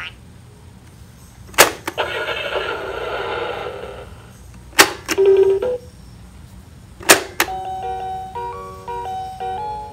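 VTech Hammer Fun Learning Truck's plastic pegs pressed down three times, each press a sharp click followed by a short electronic sound effect from the toy's speaker. After the third press, about seven seconds in, the toy starts playing a beeping electronic melody.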